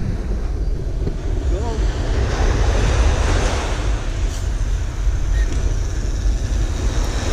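Wind buffeting the microphone with a steady low rumble, over the wash of surf breaking on the beach, which swells about two seconds in.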